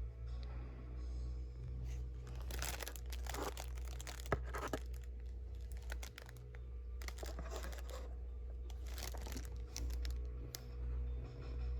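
Packaging being torn open and crinkled by hand, in two bouts of tearing and rustling of a couple of seconds each with a sharp click between them, over a steady low hum.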